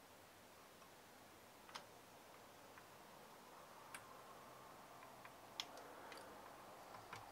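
Near silence with a handful of faint, sharp clicks and taps as fingers handle the cooling fan and heatsink inside an open Commodore 64 case.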